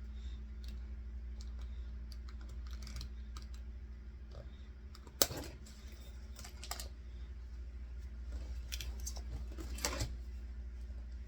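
Scattered small plastic clicks and rattles of hands working cable ties and doll parts, with one sharp snap about five seconds in and another cluster of clicks near the end. A steady low hum runs underneath.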